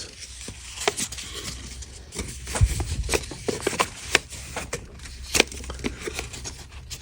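Folded paper instruction leaflet being handled and unfolded: irregular crinkles and rustles with a few sharper clicks.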